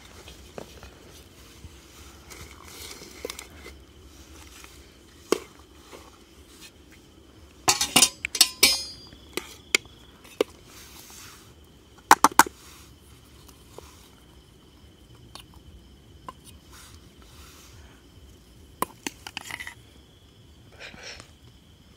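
Metal tongs and a spoon clinking and scraping against steel plates, a pan and a steel bowl as roasted chicken, rice and fries are served, in three short clusters of sharp clinks. A steady high insect trill runs behind from about halfway.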